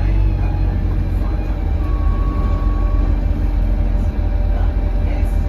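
Alexander Dennis Enviro200 bus heard from inside the saloon, its diesel engine and drivetrain running with a steady heavy low rumble. About two seconds in, a thin steady whistle-like tone sounds for about a second; the owner describes this bus as having a turbo whistle from a turbo leak.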